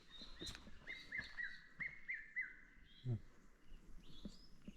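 A wild bird calling faintly: a quick run of short, repeated notes, about eight in a second and a half, followed by a few softer, higher notes near the end.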